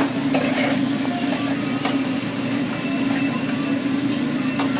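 Steady roaring hum of a commercial kitchen's exhaust hood and stove, with a few light clicks of utensils about half a second in and near the end.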